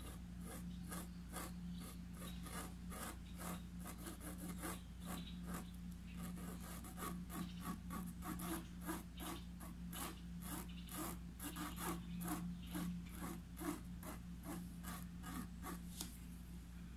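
A flat paintbrush rubbing acrylic paint into fabric stretched in an embroidery hoop: short, scratchy bristle strokes, about two or three a second, over a faint steady hum.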